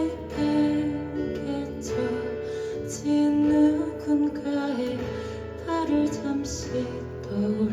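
A song played live on acoustic guitar, strummed chords with held melody notes over them.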